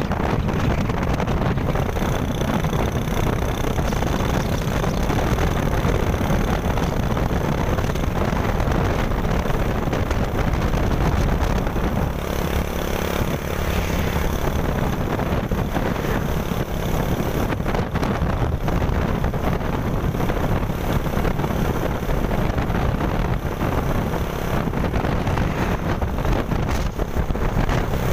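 Steady wind rumble on the microphone of a moving camera, mixed with road and engine noise while following a truck on the highway.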